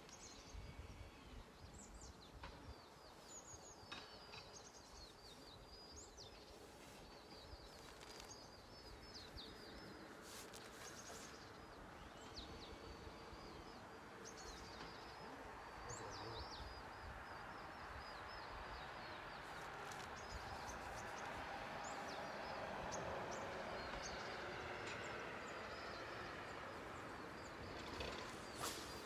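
Faint outdoor ambience with small birds chirping repeatedly in short, high calls, mostly in the first half. A broad rushing noise grows louder over the second half.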